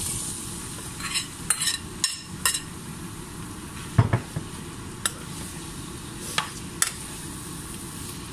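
Raw pork cubes sizzling as they go into hot oil in a frying pan, with a metal spoon scraping, clinking and knocking against the bowl and pan as the meat is tipped in and stirred. The loudest knock comes about four seconds in.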